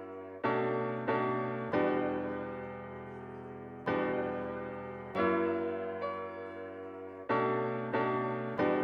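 Background music: slow piano chords, each struck and left to ring out.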